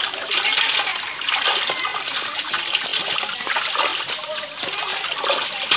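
Water splashing irregularly, with many short sharp splashes, as live fish thrash in a gathered fishing net in shallow pond water and are grabbed out by hand.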